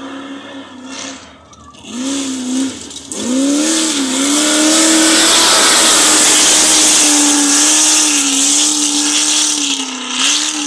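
Off-road race buggy's engine revving hard, pitch swinging up and down, then a loud rushing noise as it passes close by at speed.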